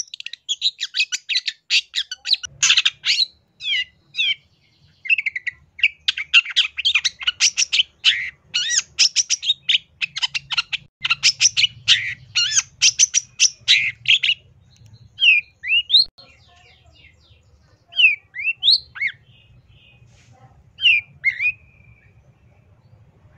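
Long-tailed shrike (cendet) singing a loud, busy song: a rapid run of harsh chattering notes for the first half, then separate short whistled notes sliding up and down.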